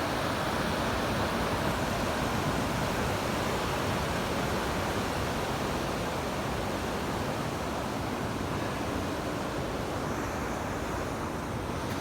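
Steady rushing of ocean surf breaking on a beach, an even wash of noise that eases slightly near the end.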